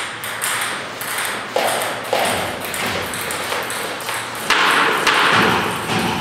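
Table tennis rally: a celluloid ball clicking in quick succession off paddles and the table. About four and a half seconds in, a louder rushing noise rises over the clicks for more than a second.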